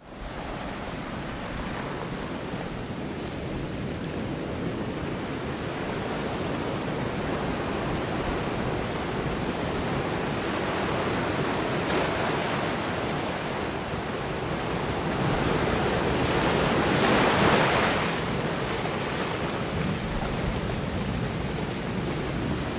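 Steady wash of wind and sea waves, swelling louder for a few seconds about three-quarters of the way through.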